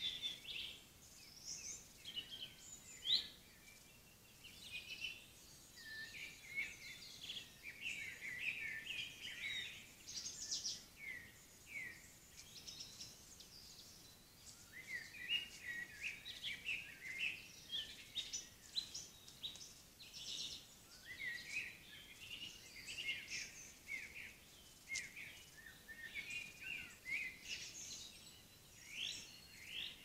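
Several songbirds singing together in woodland: many short chirps, trills and quick whistled sweeps overlapping throughout, heard through a trail camera's microphone over a faint hiss.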